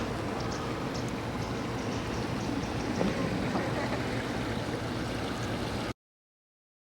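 A steady rushing noise that cuts off abruptly about six seconds in, leaving about a second of dead silence.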